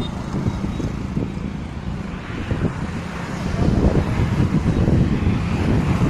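Wind buffeting the phone's microphone: a low, fluttering rumble that gets louder a little over halfway through.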